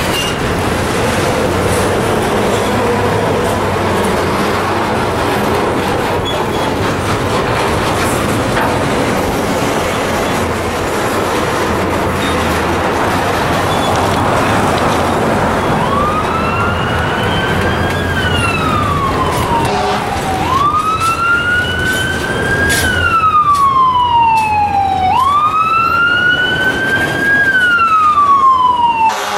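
Steady vehicle noise, then from about halfway an emergency vehicle's siren wailing. It rises quickly and falls slowly in pitch three times, growing louder toward the end.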